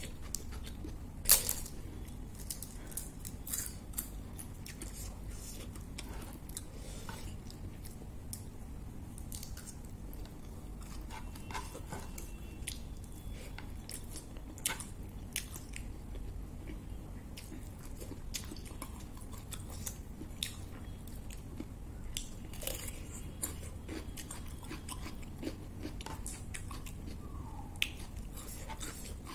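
A person chewing and crunching mouthfuls of rice mixed with crisp papad, with sharp crackles scattered throughout and the loudest crunch about a second in.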